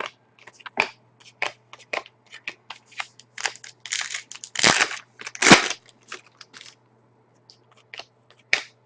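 Trading cards and foil pack wrappers being handled: a run of quick clicks and crinkles, with longer crackling bursts about halfway through, the loudest part.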